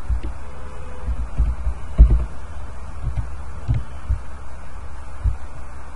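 Low thumps and a steady hum on the microphone, with one sharp click about two seconds in.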